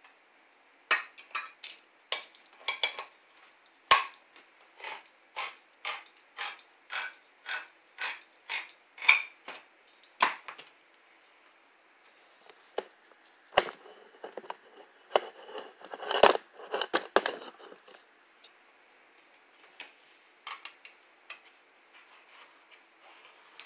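Manual can opener cranked around the rim of a steel can of diced tomatoes, clicking about twice a second for around ten seconds. Then a burst of metal scraping and clatter as the cut lid is worked free.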